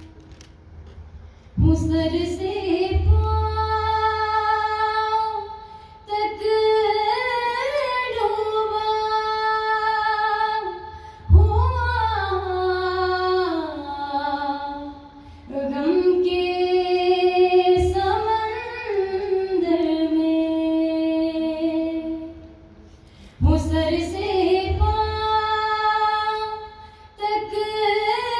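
A woman singing a naat (Islamic devotional song) solo and unaccompanied through a microphone and PA, in long held, gliding phrases with short pauses for breath between them.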